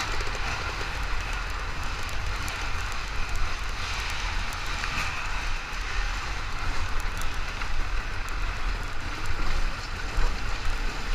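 Steady rush of wind buffeting the microphone, with a dirt bike engine running under it during a race.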